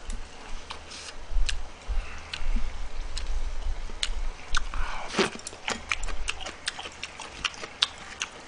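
Close-miked eating: chewing a mouthful of stir-fried chicken, with many small sharp clicks of chopsticks against the pan and dishes and a louder mouth sound about five seconds in.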